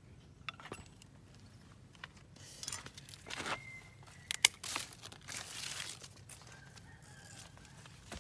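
Pruning shears snipping off a leafy shoot from the trunk of a lộc vừng (Barringtonia) tree, with the leaves rustling as they are handled. One sharp snip about four and a half seconds in is the loudest sound.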